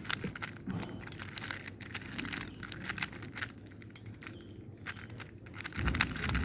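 Rubik's cube being turned quickly by hand, an irregular stream of plastic clicks and clacks as its layers are twisted, with a low bump near the end.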